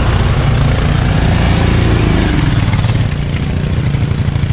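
Motorcycle engine running with a steady low exhaust pulse, easing off briefly about three seconds in.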